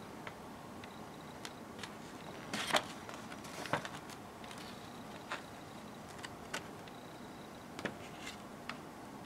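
Paper booklet pages handled and turned: scattered soft rustles and clicks, the loudest a cluster of rustles about two and a half to four seconds in.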